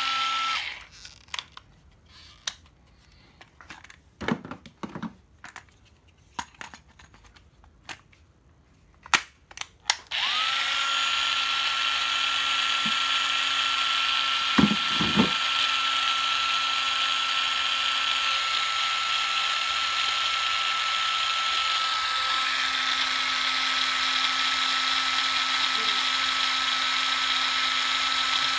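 Makita 9.6 V cordless screwdriver: a few clicks and knocks of plastic as the tool and its battery pack are handled. About ten seconds in, its motor starts and runs steadily at free speed with a constant whine.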